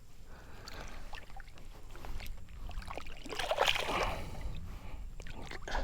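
Water sloshing and splashing as a snook is held in the water at the side of a small boat to revive it before release, with a louder splash about three and a half seconds in.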